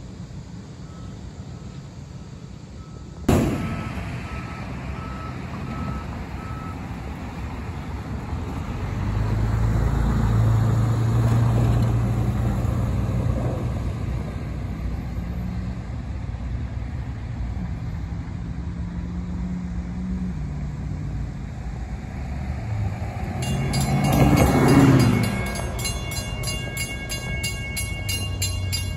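Diesel locomotive engine rumbling as a freight train moves, loudest about ten seconds in and again near the end, with a sharp knock a few seconds in. From near the end a grade-crossing bell rings steadily.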